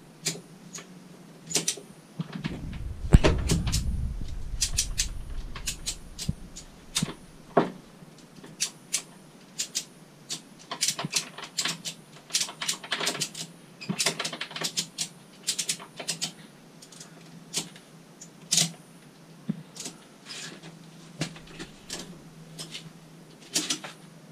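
Ratchet strap being cranked to pull a kart body tight onto the kart frame, its pawl clicking in short irregular runs. A heavier low rumble with a thud comes about three seconds in.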